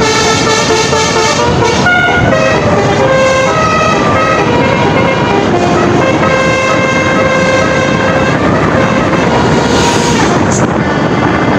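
Bus musical horn playing a tune of stepping notes, some short and some held, over steady vehicle noise; the tune stops about three-quarters of the way through.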